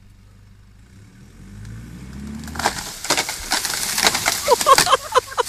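An engine revs up, rising in pitch. Then wood cracks and splinters loudly in a dense run of snaps lasting about two seconds.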